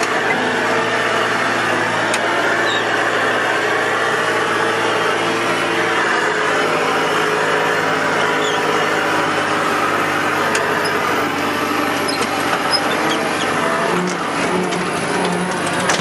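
John Deere loader tractor's engine running steadily as the machine drives along, with a low, even drone; the engine note shifts slightly near the end.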